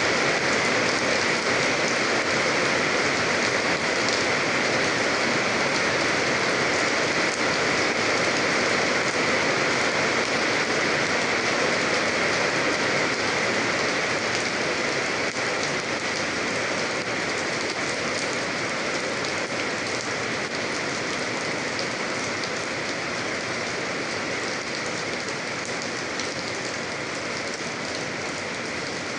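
Steady rain falling on a surface, a dense even hiss of many fine drop patters, easing slightly toward the end.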